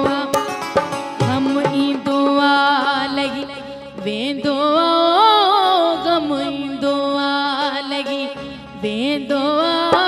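A woman sings a Sindhi Sufi song live into a microphone, holding long ornamented notes that glide up and down, over musical accompaniment.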